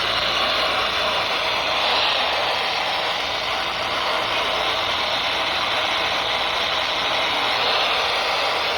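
Radio static: a steady, loud hiss with crackle from a receiver tuned to a station that is not coming in.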